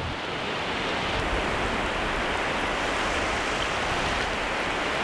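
Shallow surf washing in at the water's edge, a steady rushing hiss.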